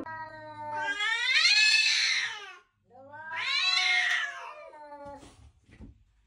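Orange tabby cat yowling at another cat it is facing off with: two long drawn-out yowls, each rising then falling in pitch, with a short break between them.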